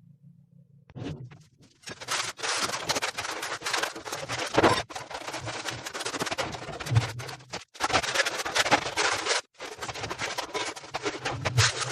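Harsh, crackling scraping noise from metal or wood being worked in the shop, starting about two seconds in and running in long stretches with brief breaks near the middle.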